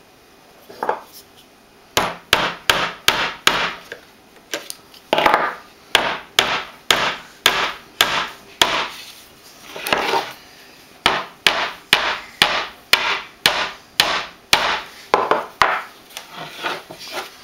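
Claw hammer tapping small nails into the wooden back of a picture frame to fix a metal picture hanger. The sharp strikes come at about two a second, with a few short pauses.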